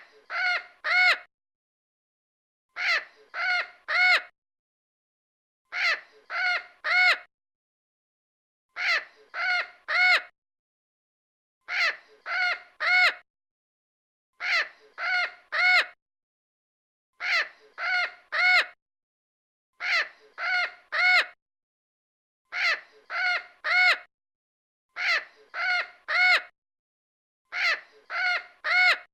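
Crow cawing in sets of three harsh caws, the set repeating about every three seconds with silence between, like a looped recording.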